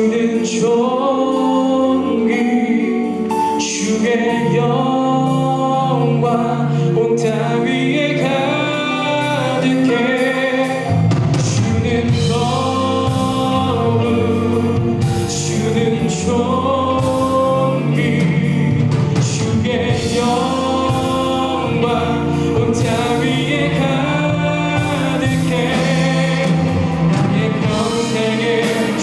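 Live worship band playing a contemporary Christian song, with singers over keyboards, electric guitar, bass guitar and drums; the bass and drums come in fuller about eleven seconds in.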